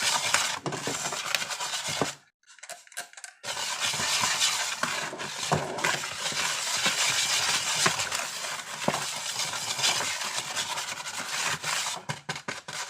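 A utensil stirring a dry, powdery baking soda and citric acid mix in a bowl, scraping and clinking against the bowl, with a short pause about two seconds in and a few separate taps near the end.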